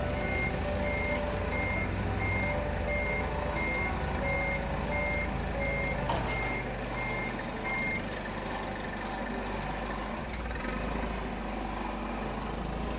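A vehicle's reversing alarm beeps evenly, about three beeps every two seconds, and stops about eight seconds in. A steady low machine hum runs underneath.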